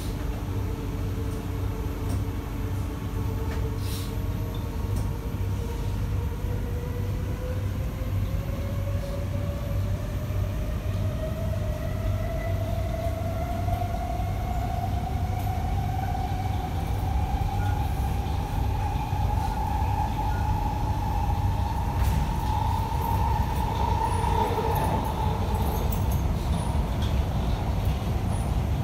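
Inside the carriage of an SMRT C151B metro train running between stations: a steady rumble of wheels on track, with the traction motors' whine climbing steadily in pitch for most of the stretch as the train gathers speed. Near the end the whine levels off and fades.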